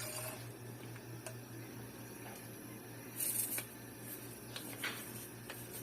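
Quiet handling sounds of washing a baby bottle with soap: a few light clicks and a short hissing burst about three seconds in, over a steady low hum.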